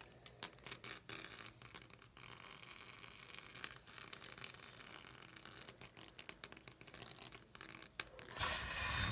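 Mouthwash poured onto a block of dry ice, crackling and fizzing: a dense run of irregular sharp clicks over a steady hiss. A louder breathy rush comes near the end.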